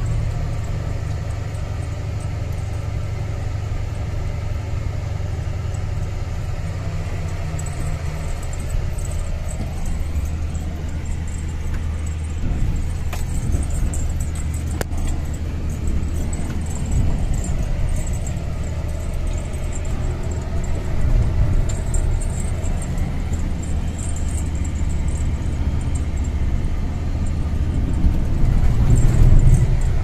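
Steady low engine drone and road noise heard from inside a vehicle's cab as it drives along a rough dirt haul road, with light rattling; the engine swells louder near the end.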